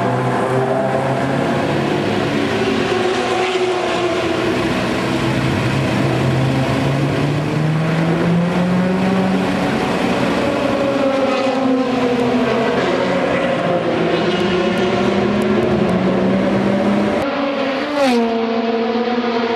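Racing car engines running on a circuit, several engine notes overlapping and rising and falling in pitch as the cars accelerate and pass. About 17 seconds in the sound changes abruptly. A moment later one engine note drops sharply in pitch and then holds steady.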